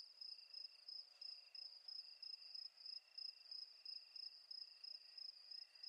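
Faint crickets chirping: a high, steady trill that pulses a few times a second, with a fainter, lower chirp repeating about once a second.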